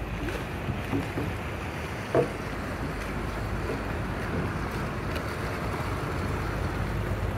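Steady wash of canal water and wind on the microphone aboard a gondola, over a constant low rumble, with a few short faint calls, the loudest about two seconds in.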